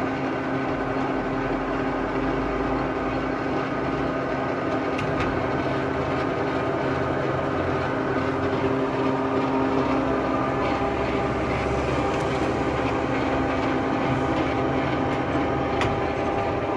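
Turnmaster 18-inch by 80-inch gap-bed engine lathe running steadily, its headstock gearing giving a constant hum with a few faint clicks.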